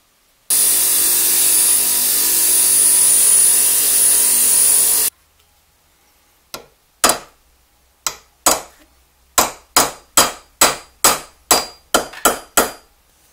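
A loud, steady machine noise with a high whine runs for about four and a half seconds and stops abruptly. After a short pause a hammer taps the copper screwdriver ferrule on a steel anvil about thirteen times, sharp ringing knocks that come faster, two to three a second, towards the end.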